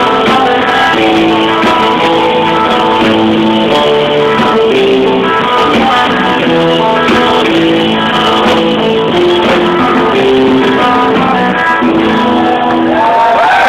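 Rock band playing live with no vocals: electric guitars picking a melody over held chords and bass, loud and steady. Crowd cheers and whoops start to rise just before the end as the song closes.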